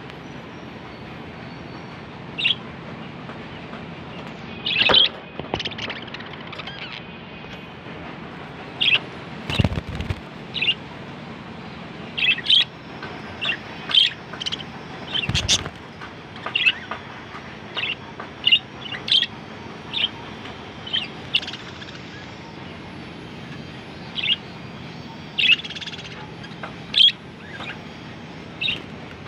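Pet budgerigars chirping, with short high calls coming every second or so over a steady background hum. Two sharp knocks come partway through.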